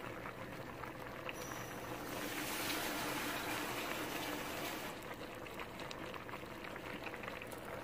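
About a cup of water poured into a hot pan of cooking Malabar spinach, a wash of pouring and hissing that swells about two seconds in and fades near five seconds, with the pan simmering before and after.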